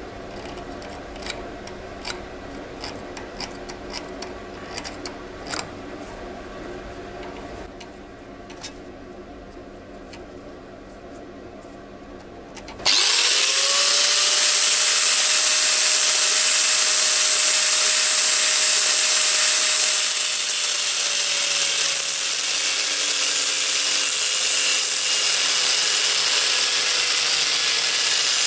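Scattered light clicks and knocks of parts being handled. About halfway through, an electric power tool starts, spins up quickly to a steady high whine and runs on loudly with a rushing noise, cutting the mild-steel jaw blank into pieces.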